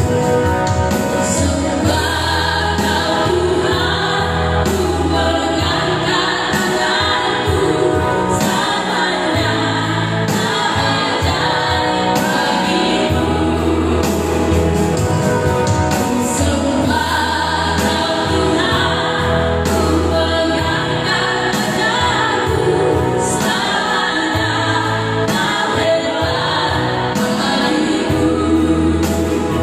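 Four women singing a Christian praise song together into microphones, accompanied by an electric keyboard.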